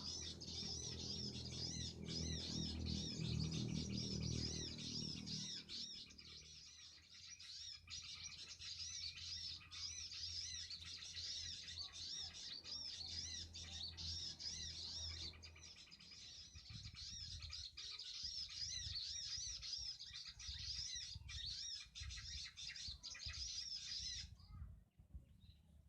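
Small birds chirping in a rapid, continuous string of high chirps that breaks off near the end. A low hum runs underneath for the first half.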